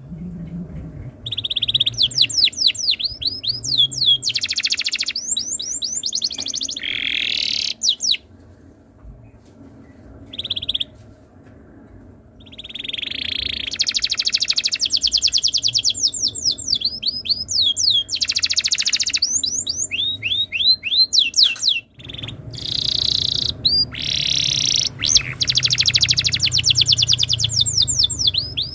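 Domestic canary singing a long song of fast high-pitched trills and rolls, rapid repeated notes in quick runs. There is a pause of a few seconds about a third of the way in, and a brief break later on.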